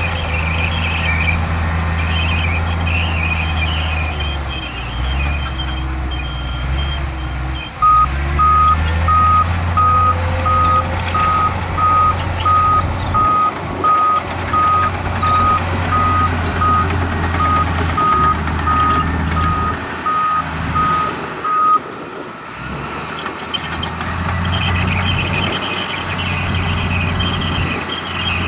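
Heavy diesel earthmoving machinery running steadily, with a backup alarm beeping in an even series from about a quarter of the way in until about three quarters through, while a machine reverses.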